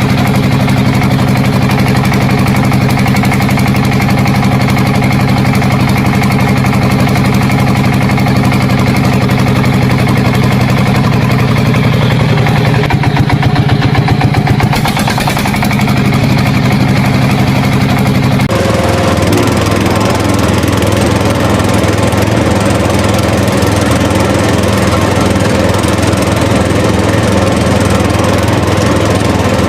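An engine running steadily; its note wavers briefly a little before halfway and changes about two-thirds of the way through, after which it runs on steadily.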